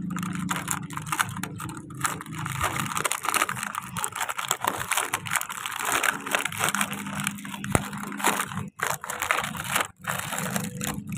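Stiff plastic blister packaging of a toy car set being handled and pulled open by hand: a continuous dense crinkling and crackling of plastic and card, with a couple of short pauses near the end.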